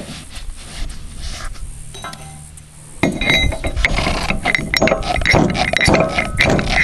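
Brass ramrod tamping wadding down the barrel of a black-powder signal cannon: rapid metallic clinking and scraping, quiet at first and becoming loud and continuous about three seconds in.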